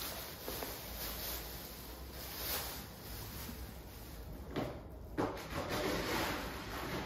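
Scuffling and scraping as a cat rolls on a hard floor, clutching and kicking a cucumber toy, louder in the second half.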